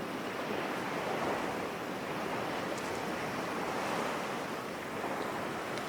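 Ocean waves, a relaxation sound effect: a steady wash of surf that swells gently and eases off.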